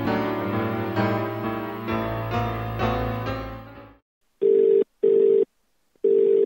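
Instrumental intro music that fades out about four seconds in. After a short silence come loud beeps of a single steady telephone-style tone, in pairs, like a phone ring tone.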